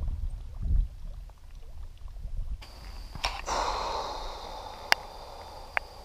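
A low rumble for the first couple of seconds, then a woman blowing out a hard breath, winded from a long uphill bike climb, with a few sharp clicks.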